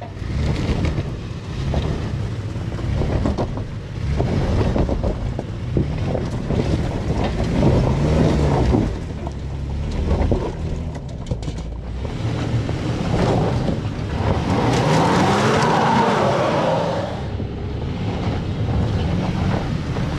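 Toyota 4Runner's V6 engine running under load as the SUV crawls over rocks, its pitch rising and falling with the throttle a few times.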